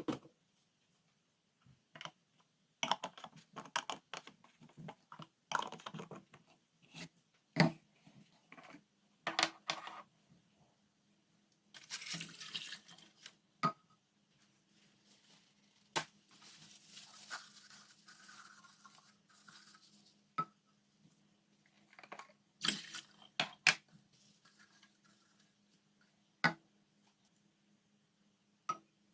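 Kitchen handling sounds while packing food: scattered clicks and knocks of containers and utensils, with two stretches of rustling or scraping, over a faint steady hum that comes in about a third of the way through.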